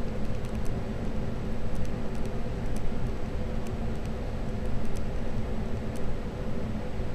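Faint, irregular light clicks and taps from a kitten pushing at the foot pedal of a stainless-steel step trash can, over a steady low hum.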